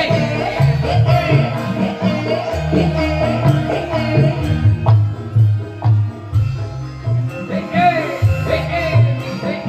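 Live band music with a steady bass and hand-drum beat under a wavering lead melody.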